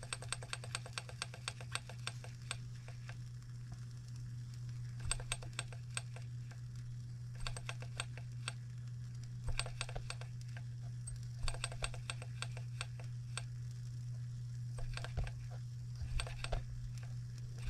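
Small hot-air Stirling model engine clicking rapidly as it runs, slowing after about two and a half seconds to scattered, irregular clicks over a steady low hum. The slowdown is the sign of oil on its piston, which makes a hot-air engine bog down.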